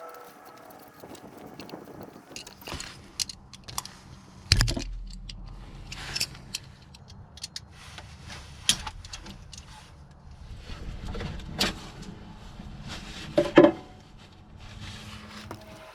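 Scattered metallic clicks, rattles and knocks of hand work on a skid steer's battery cables, clipping a ground clamp onto bared copper wire. The loudest is a sharp knock near the end, and a low steady hum runs underneath from about four seconds in.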